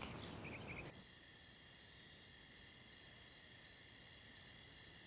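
Faint, steady chorus of night insects, a layered high trilling that starts abruptly about a second in.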